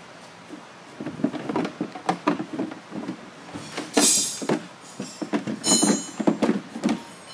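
Knocks, taps and scrapes of a walk-behind trencher's plastic belt housing being slid back into place over the belts, with two louder scrapes about four and six seconds in.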